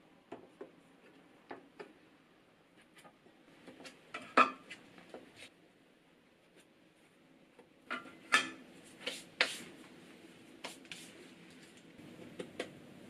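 Stainless-steel bench scraper clacking and scraping against the floured work surface as it cuts bread dough into portions, in scattered sharp knocks; the loudest come a little past four seconds in and twice more between eight and ten seconds in.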